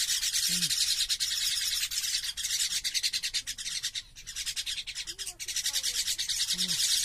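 Young common mynas giving a harsh, rapid, rasping chatter of begging calls with beaks gaping, almost without a break, with a short pause about four seconds in.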